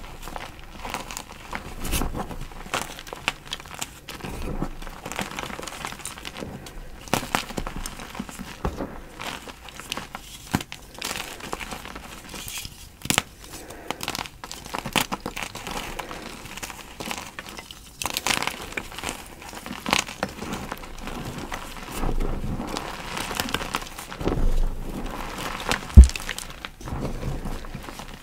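Blocks of gym chalk crunching and crumbling, a dense run of irregular crackles and crinkles. A single sharp knock near the end is the loudest sound.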